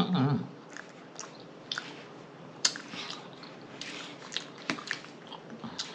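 Close-miked, wet chewing and lip-smacking of soft peach cobbler and ice cream, a run of sharp mouth clicks and smacks, after a brief hummed "mmm" at the very start.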